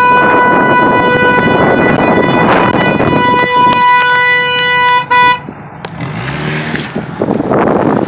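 Car horn held down in one long steady blast of about five seconds, with a brief break near the end and a short final toot. Wind and handling noise are on the microphone throughout.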